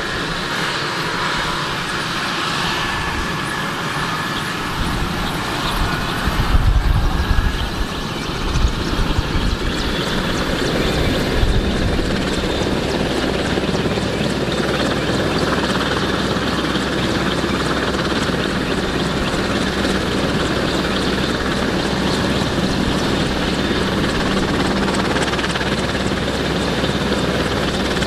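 AgustaWestland AW101 Merlin helicopter running on the ground during start-up, its turboshaft engines and turning main rotor making a loud steady noise. A high turbine whine stands out in the first ten seconds, with a burst of low rumble about seven seconds in; then the sound settles into an even rotor beat.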